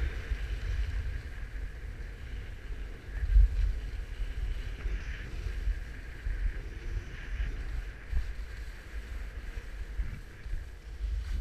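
Wind buffeting the microphone of an action camera worn by a skier moving downhill, over a steady hiss of skis sliding on snow. The wind comes in uneven gusts, the strongest about three and a half seconds in.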